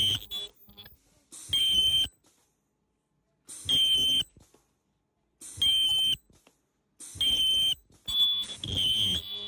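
Ultrasonic welding press fusing the top ring onto a 7-inch liquid filter bag: five short, piercing high-pitched screeches, about one every two seconds, as the ring is welded section by section while the bag is turned.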